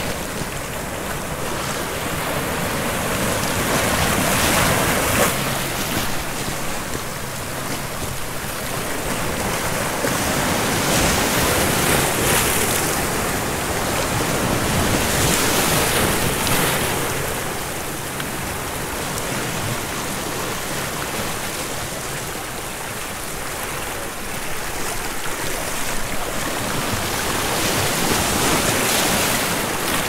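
Sea waves breaking and washing over volcanic shore rocks, the surf swelling and easing every few seconds.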